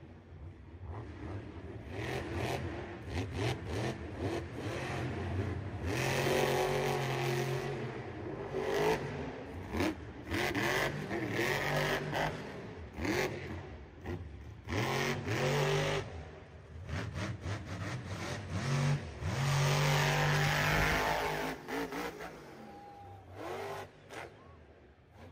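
Monster truck's supercharged V8 revving hard again and again, its pitch sweeping up and dropping off as the throttle is worked, with a noisy arena haze behind and sudden jumps in sound between takes.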